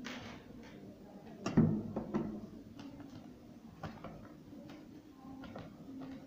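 Small clicks and knocks of hands, tools and loose screws on the wooden frame of a balance's glass case and the tabletop while it is being unscrewed, with one louder knock about a second and a half in. A faint steady hum runs underneath.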